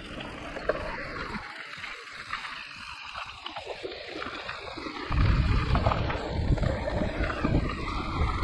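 Mountain bike rolling down a trail: tyre and trail noise with small rattles, and wind buffeting the microphone from about five seconds in.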